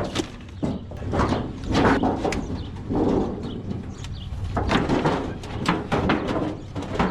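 Junk being rummaged through and pulled out of a curbside scrap pile, sheet metal and a pot among it: an irregular run of knocks, clanks and scraping.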